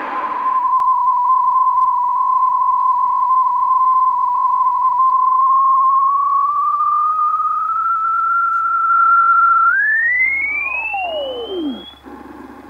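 Yaesu FRG-100 communications receiver in upper-sideband mode, tuned down through the longwave band around 80 kHz: the whistle of a transmitter's carrier, steady at first and slowly rising in pitch. About ten seconds in it sweeps sharply up while a second whistle falls away, leaving faint hiss near the end.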